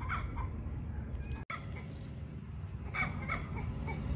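Chickens clucking in short calls, a couple near the start and several more from about three seconds in, over a low steady rumble.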